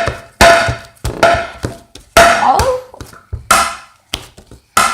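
Sticky slime being slapped and smacked by hand, about six sharp wet slaps, each fading quickly.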